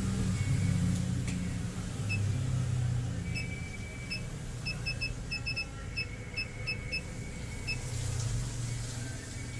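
A string of short, high electronic beeps, about a dozen and irregularly spaced, starting about two seconds in and stopping near the end, over a steady low hum.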